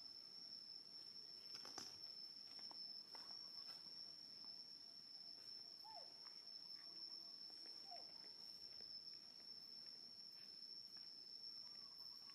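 Faint, steady, high-pitched insect trill, with two short falling chirps near the middle and a few soft clicks early on.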